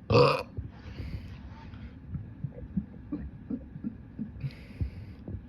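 A person's short, loud belch right at the start, followed by quieter throat and mouth sounds: scattered soft low clicks and a faint breath about four and a half seconds in.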